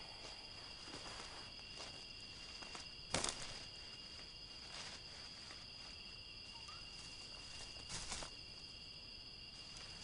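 Night insects, crickets, trilling steadily. A sharp snap about three seconds in and a few softer cracks near eight seconds, as of footsteps on twigs and undergrowth.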